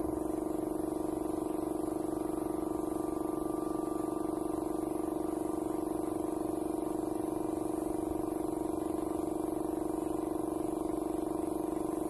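Air compressor running steadily, a low hum with a fast, even pulse, powering a paint spray gun that hisses as it sprays.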